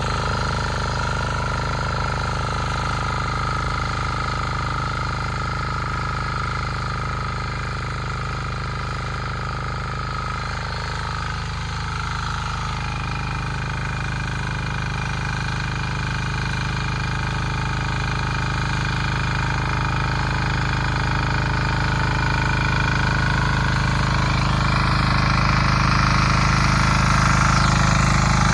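Bolat Atom 7 HP single-cylinder diesel hoe tiller's engine running steadily under load while it cuts a furrow, growing louder toward the end.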